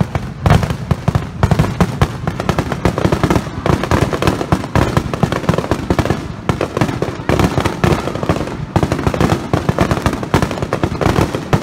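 Aerial firework shells bursting in a dense, rapid barrage, a continuous run of overlapping bangs with no gap between them.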